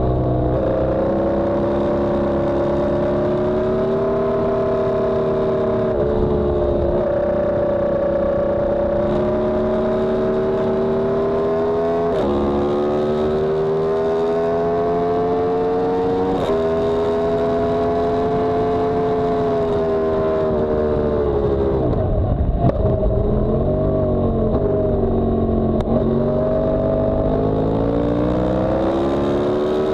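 Yamaha R1M's crossplane inline-four engine at racing revs, its pitch climbing steadily through the gears with sharp drops at upshifts about six, twelve and sixteen seconds in. Past twenty seconds the revs fall and blip through downshifts under braking, then climb again as the bike accelerates.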